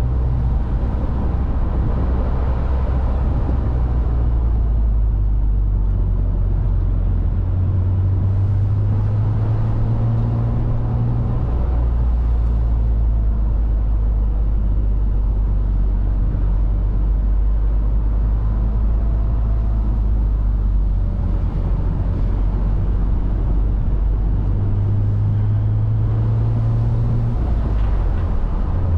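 The 3.2-litre inline-six of a 2000 BMW Z3 M Roadster, heard from the driver's seat while driving. Its note steps higher about eight seconds in, drops back about twelve seconds in, then rises and falls again near the end, as the revs change.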